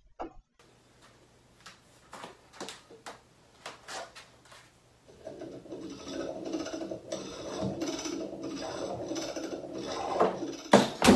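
A gymnastic rings rig hung from the top of a doorframe sounds steadily under a person's weight from about halfway through as he hangs and swings, after a few scattered knocks. Near the end there is a loud crash as the rig comes down and he drops to the floor.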